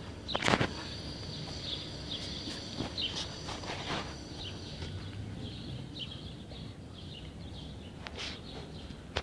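A football being kicked: one sharp thud about half a second in and a few softer knocks later. Birds chirp faintly in the background throughout.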